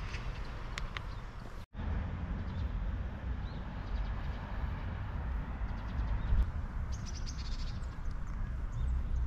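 Outdoor ambience: a steady low rumble with scattered bird chirps, the busiest cluster about seven seconds in. The sound cuts out for an instant near the start.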